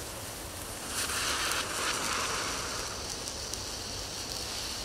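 Gold fountain firework fizzing as its fuse burns, then hissing steadily as it sprays sparks; the hiss turns higher-pitched about halfway through.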